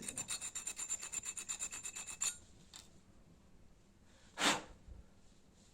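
Small strip of sandpaper rubbed quickly back and forth over a clothes iron's thermostat contact points, about ten short rasping strokes a second for a little over two seconds, then stopping. The contacts had stuck together and are being sanded clean so that they open and close again. About four and a half seconds in there is one brief, louder noise.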